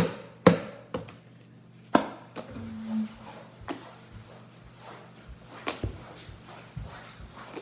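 Irregular sharp clicks and knocks, several in the first two seconds and fewer later, over a steady low hum.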